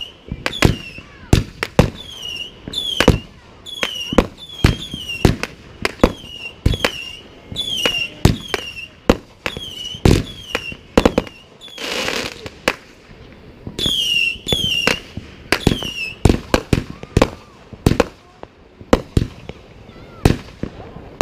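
Multi-shot aerial fireworks firing a rapid string of shells, about one to two bangs a second, many of them followed by a short whistle that falls in pitch. A hissing crackle comes about twelve seconds in, and the shots thin out briefly near the end.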